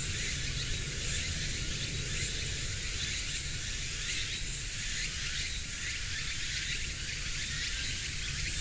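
Steady outdoor background: a constant high hiss of insects over a low rumble.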